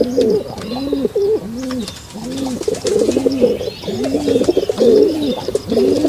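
Several pigeons cooing continuously. Each coo is a short rise-and-fall repeated about every half second or so, and a lower and a higher voice overlap.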